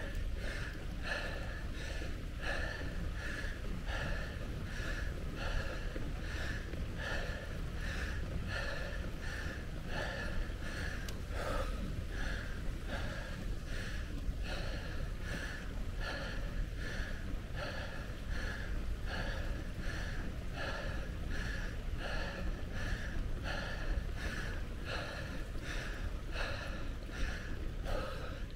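A cyclist breathing hard in a quick, even rhythm while pedalling up a climb, over a steady low rumble of wind and tyres on the road.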